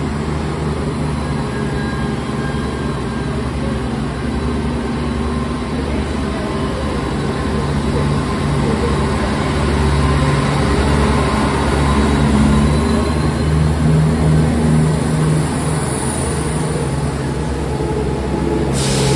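Class 170 Turbostar diesel multiple unit pulling away from the platform, its underfloor diesel engines running under power with a steady low hum that grows louder as it gathers speed. A hiss comes in near the end.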